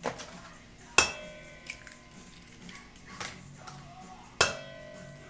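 Eggs rapped against the rim of a stainless steel mixing bowl to crack them: sharp knocks, each with a short metallic ring. Two loud ones come about a second in and near the end, with lighter taps at the start and about three seconds in.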